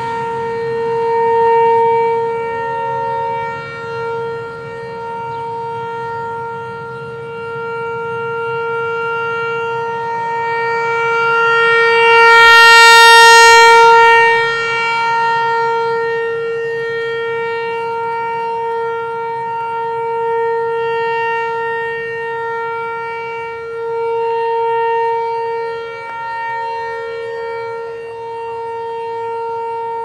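American Signal ASC T-128 Tornado rotating outdoor warning siren sounding a steady, single-pitch tone at full speed during a test. Its loudness swells and fades as the turning horn sweeps past, and it is loudest about halfway through.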